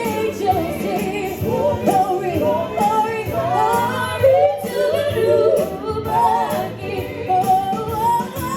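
Gospel singing with sliding vocal runs, over instrumental accompaniment.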